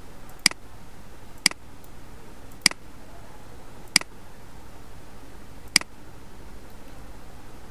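Computer mouse button clicking five times at uneven intervals, each a short sharp click, over a steady low hum.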